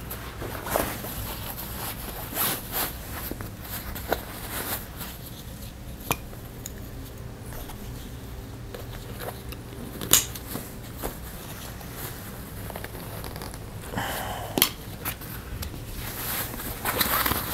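Handling of a loaded nylon USMC ILBE assault pack: fabric rustling and scraping as straps and compartments are worked, with occasional sharp clicks of its hardware.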